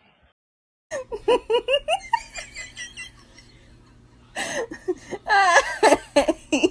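A person laughing hard in quick, repeated pulses. The laughter starts after about a second of near silence, dies down briefly, and comes back louder from about four and a half seconds in.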